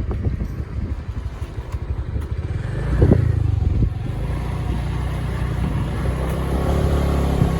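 Motorbike running on the move, a steady low engine rumble that grows louder about three seconds in.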